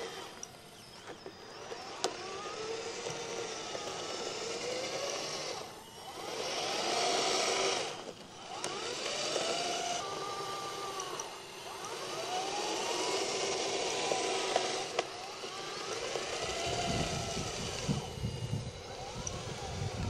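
Radio-controlled Liebherr 634 crawler loader model driving and pushing sand, its motors whining up and down in pitch over and over as it speeds up and slows down, with a hiss over the whine. A low rumble comes in over the last few seconds.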